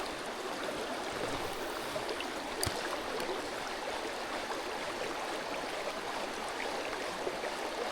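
Shallow, rocky mountain stream flowing, a steady rush of water. One brief click about two and a half seconds in.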